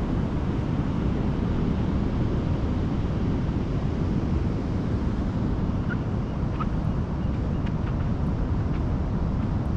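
Wind blowing on the microphone over the steady rush of ocean surf, a constant noise heaviest in the low end.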